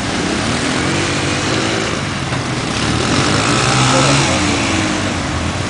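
Engine of a small lifted 4x4 running through a muddy water hole, its revs rising and falling a few times, with water churning around the tyres.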